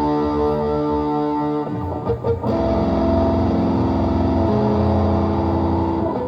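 Electric guitar played through a Valeton GP-200LT multi-effects processor: sustained chords ringing out, a brief break with a few muted string scratches about two seconds in, then new held chords that change again partway through.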